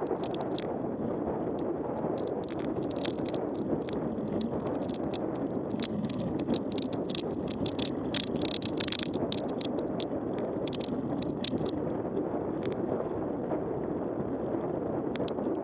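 Mountain bike riding over a rough, muddy dirt track: a steady rushing noise of tyres and air, with many sharp clicks and rattles from the bike over the bumps, thickest about eight to nine seconds in.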